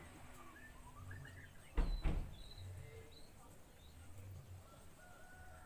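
Faint, scattered bird chirps in the background, with two sharp knocks about two seconds in.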